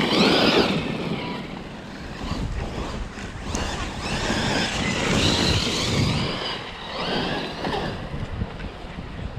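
Electric motor of a Losi RZR Pro R RC side-by-side whining up and down with the throttle as it drives over a dirt track, over a steady noise of tyres on loose dirt and wind on the microphone.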